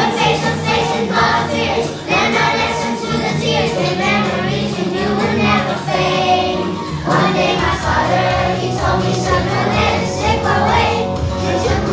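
A song with a group of voices singing together over an instrumental backing.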